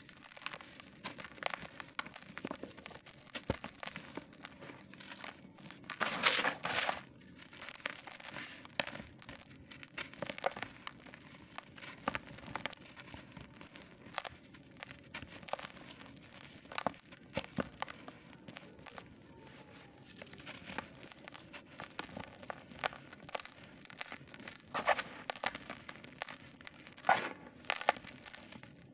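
Hands crushing and crumbling lumps of super-dry earth in a plastic tub: irregular crunching and crackling, with powder sifting through the fingers. The crunches come louder about six to seven seconds in and again near the end.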